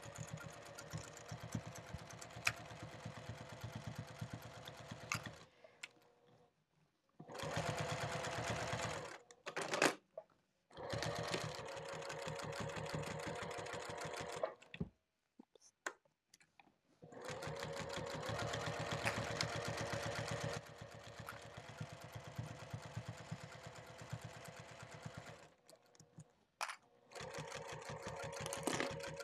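Sewing machine stitching binding down in the ditch, run in several short stretches that stop and start again. Each run is a fast, even ticking of stitches over a steady motor hum.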